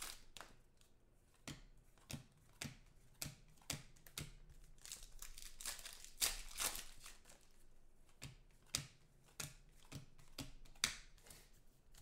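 Trading cards and a foil pack wrapper being handled by hand: a string of short clicks and snaps, about one or two a second, as cards are flicked and tapped, with light crinkling of the wrapper between them.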